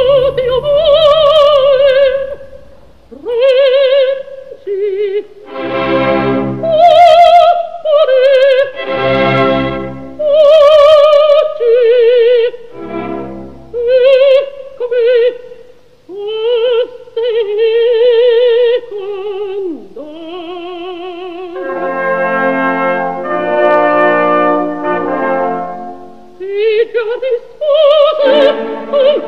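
Background music: an operatic voice singing with strong vibrato in long phrases broken by short pauses, over an orchestral accompaniment that swells into fuller chords a little past the middle.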